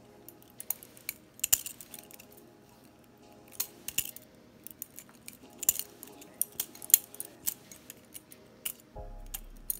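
Butterfly knife (balisong) being flipped: a string of sharp, irregular metallic clicks and clacks as the handles swing round and knock together, several to the second.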